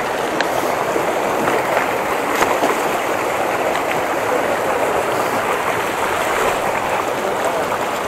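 Shallow, rocky forest stream rushing and splashing over stones close by: a steady, even rush of water.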